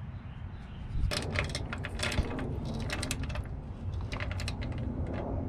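Ratchet wrench clicking in quick runs as it tightens the 10 mm mounting bolt of a brake hose bracket, starting about a second in.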